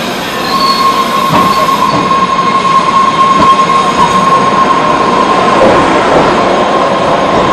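MBTA Red Line subway train pulling into the platform and running past close by. Its rumble grows louder about half a second in, with a steady high whine above it from then on.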